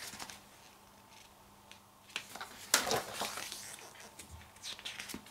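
Paper rustling and swishing in a few short bursts as glossy pages of a photobook are handled and turned.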